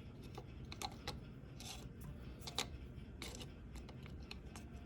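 Light plastic clicks and short scrapes as a pry tool works at the notch of a power-mirror switch's snap-on faceplate, a few scattered ticks with one slightly louder click near the middle.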